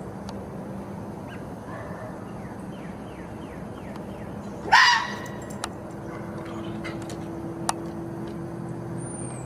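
A fox gives one loud, short call about halfway through that rises and then falls in pitch. Faint short chirps come a second or two before it.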